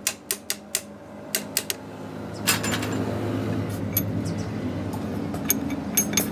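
Sharp metallic clinks and taps as the bearing cap and threaded adjuster ring of a truck differential carrier are handled by hand: about seven quick clicks in the first two seconds, then a few more scattered ones. From about two and a half seconds in, a steady low hum comes up underneath.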